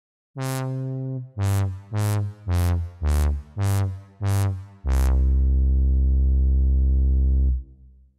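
Synthesizer and sampled-keyboard music cue. An opening chord is followed by six short, separate chords about two a second, with the bass moving between them. It ends on a long, held chord with a strong bass, which cuts off sharply after about two and a half seconds.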